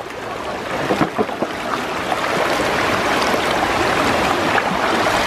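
Fast-flowing stream water rushing and splashing steadily around a small hand-held turbine set down in the current.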